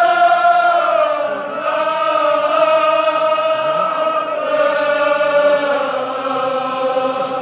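Men's voices chanting a Kashmiri marsiya (Shia elegy) together, in long held phrases that each drift slowly down in pitch.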